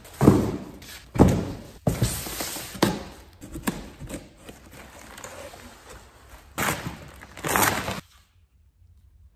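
Plastic wrapping and cardboard packaging crackling, rustling and being torn off a new car A/C condenser, with several sharp thumps as the wrapped part is handled and set down. It stops about eight seconds in.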